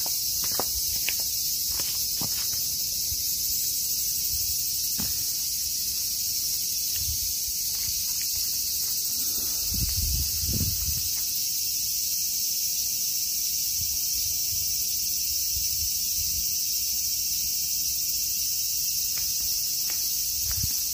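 Steady high-pitched insect chorus, with a few sharp footstep clicks of sandals on the shrine's stone and wooden steps in the first few seconds and some low thumps near the middle.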